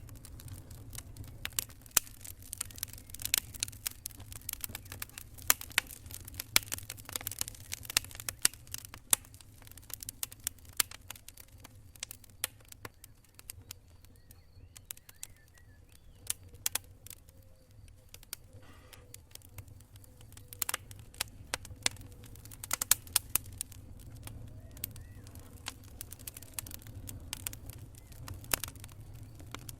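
Wood campfire crackling: irregular sharp pops and snaps, sometimes in quick clusters, over a steady low rumble.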